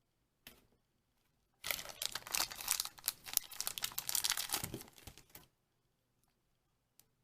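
Plastic blind-pack toy packaging being torn open and crinkled by hand: a brief crackle, then a few seconds of dense, rapid crinkling and tearing, and a faint click near the end.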